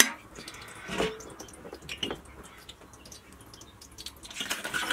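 Open wood fire crackling and popping under a frying pan, with the pan sizzling and a few short louder handling noises about one and two seconds in and near the end.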